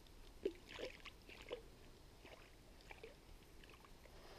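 Faint, irregular small splashes and sloshes of water from a hooked fish struggling at the surface in the weeds.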